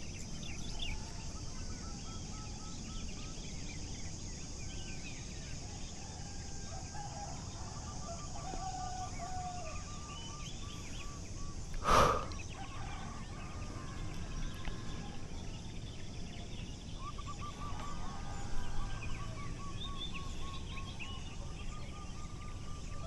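Open-field ambience: birds calling in series of quick repeated notes, over a steady high drone of insects. About halfway through there is one short, louder sound.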